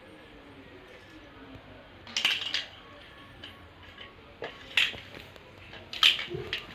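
A cat playing, batting a small hard object that clatters and clinks in three short bursts: a double clatter about two seconds in, a single knock near the middle and a louder clatter near the end.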